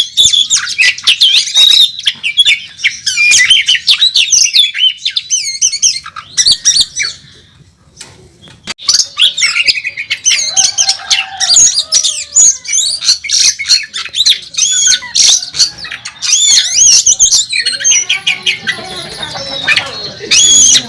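Oriental magpie-robin (kacer) singing a loud, rapid, varied song of gliding whistles, trills and harsh rasping notes. The song breaks off briefly about eight seconds in, then resumes.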